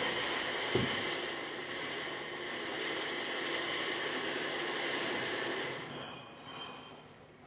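Heavy rain drumming on a polycarbonate conservatory roof, a dense steady hiss, with a single knock about a second in. About six seconds in the noise falls away to a much quieter patter.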